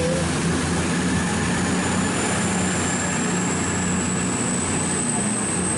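CrossCountry diesel passenger train moving past along the platform: a steady rumble of engines and wheels, with a thin high whine that slowly rises in pitch.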